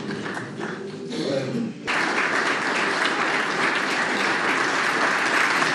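Audience applauding in a large hall. The clapping cuts in suddenly about two seconds in, after faint voices.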